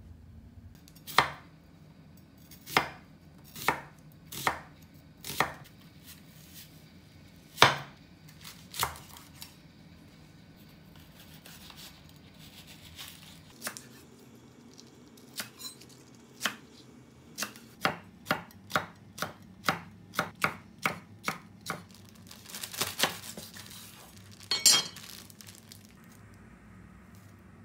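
Kitchen knife chopping vegetables on a wooden cutting board: separate cuts about a second apart at first, then a quicker run of about two cuts a second.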